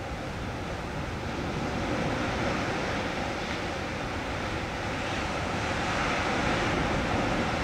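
Sea surf with wind: a steady wash of waves that swells slightly in the second half.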